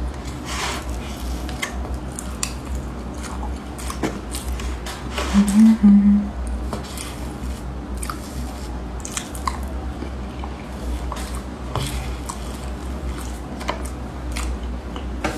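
Close-up eating sounds: a mouth chewing dense Basque cheesecake, with scattered small clicks of a metal spoon scraping through the cake and against the plate. About five seconds in, a short hummed sound is the loudest moment. A steady low hum lies underneath.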